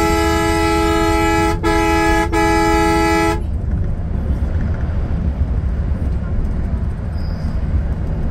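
Bus horn sounding in three quick blasts that run together over the first three seconds or so, then the steady low rumble of the bus engine and road noise heard from inside the cabin.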